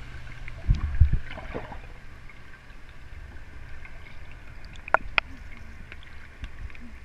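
Swimmers moving in a pool, heard underwater and muffled through a GoPro's waterproof housing: a low rumble with a few dull thumps about a second in and a few sharp clicks around five seconds in.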